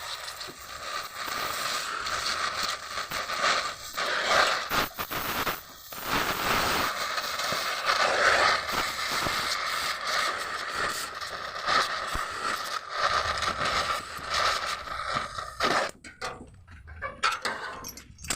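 Body-repair work on the sheet-metal panel of a Mitsubishi L300: a continuous rough scraping and grinding that thins out over the last couple of seconds and cuts off suddenly at the end.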